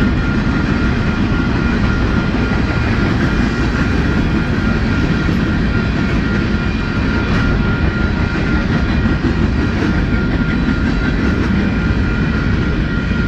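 Mixed freight train rolling steadily past on the rails: a continuous rumble of wheels and cars with a thin, steady high-pitched ring over it.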